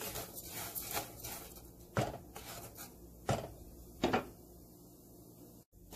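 Wooden spoon stirring rice as it browns in a Royal Prestige stainless steel pan: the dry grains rustle and scrape against the pan. Then come three sharp knocks, about a second apart, the loudest sounds.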